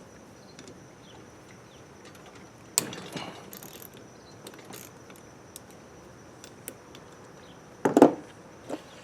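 Hand tools working bolts on a small motorcycle engine: scattered metallic clicks and a short ratcheting rattle about three seconds in, then a louder clunk of metal near the end.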